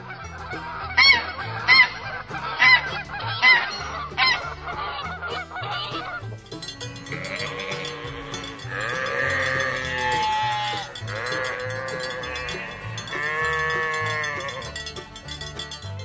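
A domestic goose honking five times, short calls about a second apart. From about six seconds in, a flock of sheep and goats bleating over one another without a break.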